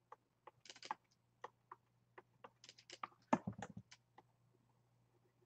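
Computer keyboard keys tapped in faint, irregular clicks, with a quicker, louder run about three and a half seconds in, over a steady low hum. The clicks stop about four seconds in.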